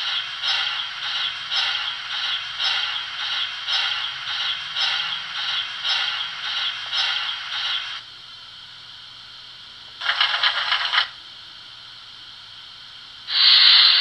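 Sound decoder of a Märklin BR 44 model steam locomotive, standing still, playing a rhythmic scraping steam effect about twice a second that stops about 8 seconds in. After that there is a faint steady hiss, broken by two short bursts of hissing, the second one louder and near the end.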